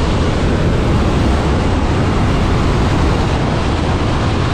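Loud, steady rush of freefall wind buffeting a helmet-mounted camera's microphone as skydivers fall together in formation.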